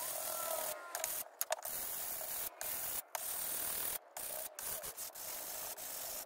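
Hand sanding a walnut and plywood tray with a sanding pad: a dry rubbing of back-and-forth strokes, broken by several short pauses.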